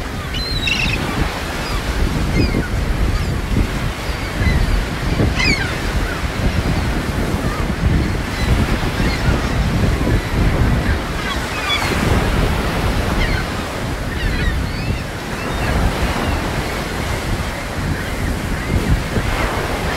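Ocean surf breaking and washing ashore in a steady rush, with wind buffeting the microphone. Short, high bird calls break in now and then.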